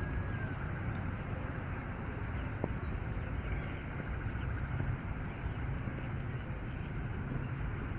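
Steady low rumble of road traffic passing nearby.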